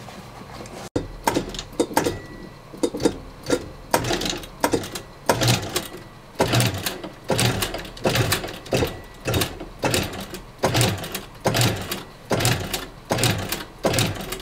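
Heavy-duty industrial leather sewing machine stitching thick leather slowly, starting about a second in: an even run of knocking strokes, about two a second, each with a heavy low thud as the needle drives through.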